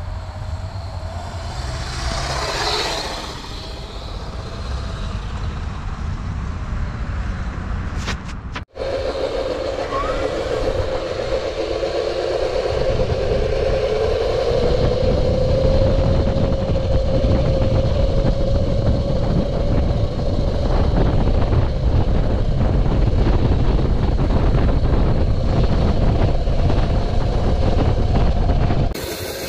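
Electric dirt bike riding at speed: a steady motor whine that climbs in pitch as the bike accelerates, then holds, over heavy wind rumble on the microphone. A rush of noise comes about three seconds in, and the sound cuts out for a moment near nine seconds.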